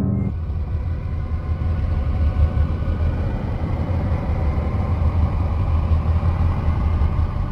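A steady low rumbling drone with faint held higher tones above it, like a dark ambient sound bed.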